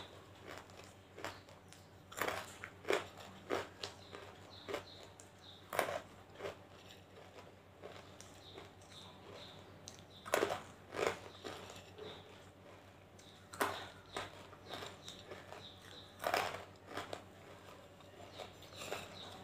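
Hard white banslochan (tabasheer) pieces crunched between the teeth: groups of sharp crunches every few seconds, with quieter chewing in between.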